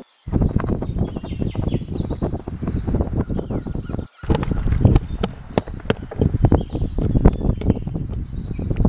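A plastic spatula stirring finely chopped raw vegetables in a plastic tub: dense, close rustling and clicking. Small birds chirp throughout, and the sound drops out briefly twice, near the start and about four seconds in.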